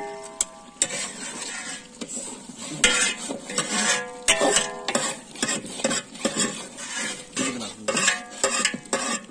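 A metal ladle stirring chicken curry in a large aluminium cooking pot: repeated scraping against the pot, with many sharp clanks of metal on metal, a few of them ringing briefly.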